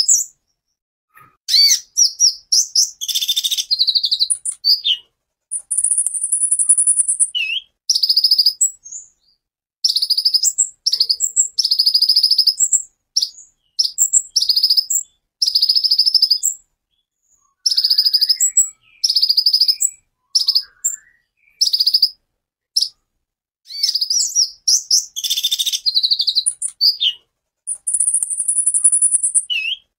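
Male purple-throated sunbird (kolibri ninja) singing a long run of short, high-pitched, rapid chattering phrases with brief gaps between them, including two high buzzing trills.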